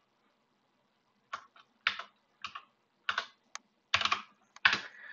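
Computer keyboard being typed on: after about a second of quiet, a run of single keystrokes at an uneven pace, some in quick clusters, as a short command is typed out.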